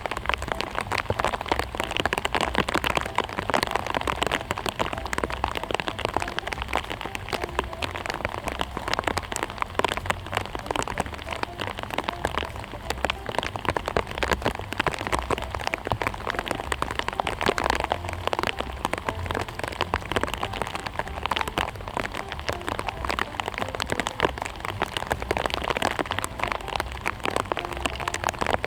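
Steady rain falling on hard surfaces: a dense, even ticking of drops, with a low rumble underneath.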